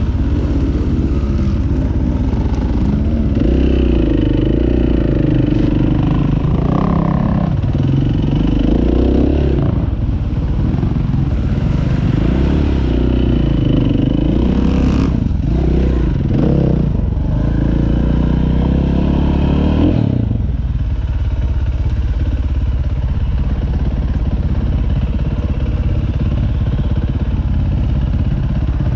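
Dirt bike engine running under the rider, revving up and down with the throttle through the first twenty seconds, then running more steadily.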